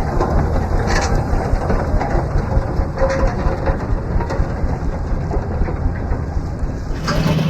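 Frick Eclipse steam traction engine running as it drives past: a loud, uneven, rapidly pulsing rumble. Near the end it gives way abruptly to a steadier low hum.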